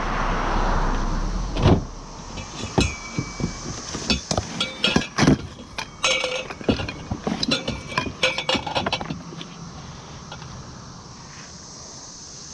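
Scrap metal being handled and loaded: a brief rush of noise, then a run of sharp metallic clanks and clinks, some ringing, for several seconds before it settles down.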